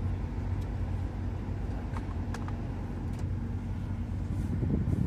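Steady in-cabin car noise while driving, with the heater blower running freshly tested after a clogged cabin filter was replaced, and a few light clicks.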